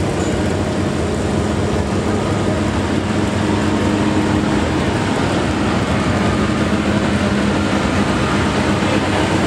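Tractor engine running steadily at a near-constant speed, its pitch dropping slightly about halfway through.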